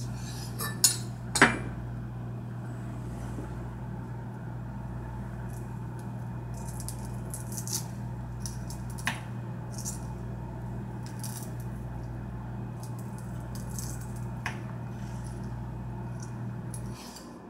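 Chef's knife on a wooden cutting board as a chili pepper is cut and seeded: two sharp knocks in the first second and a half, then light scraping and clicks from the knife tip. A steady low hum runs underneath and stops shortly before the end.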